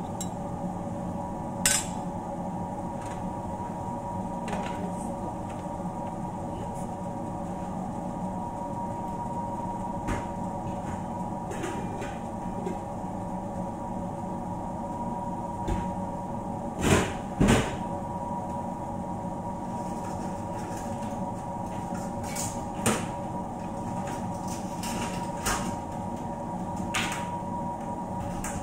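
Scattered clanks of a metal spoon against a frying pan over a steady low hum. The loudest are two clanks close together about halfway through.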